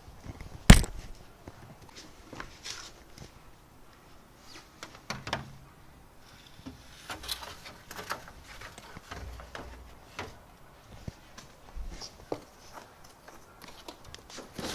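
Unpacking a 3D printer from its box: scattered knocks, clicks and rustles as parts and packing material are handled, with one sharp knock about a second in.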